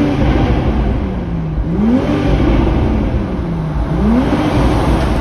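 Stock exhaust of a 2022 Toyota GR Supra 3.0's turbocharged inline-six, revved in a tunnel: the revs rise sharply and fall back about every two seconds. The car is fully broken in on its stock exhaust.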